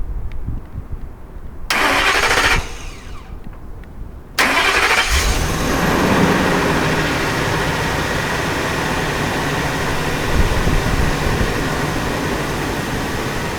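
2004 Ford Excursion's engine starting on a newly installed battery and settling into a steady idle, the no-start ticking gone. There is a short loud burst about two seconds in, and then about four seconds in the engine starts.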